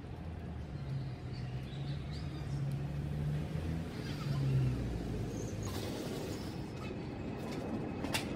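A low, steady engine hum in the background that swells and then stops about halfway, with a few faint bird chirps and a sharp click near the end.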